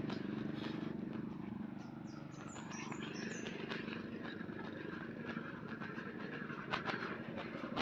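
A steady low engine hum in the background, with a short run of quick, high bird chirps about two seconds in.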